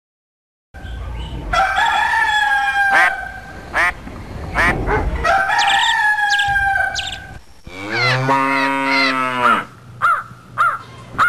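Farmyard animal calls: a rooster crowing, drawn-out calls repeated twice, with a long lower arched call about eight seconds in and short clucking calls near the end.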